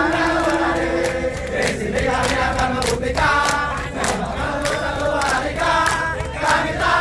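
A crowd of many voices singing together in unison: a held note in the first second, then shorter sung phrases.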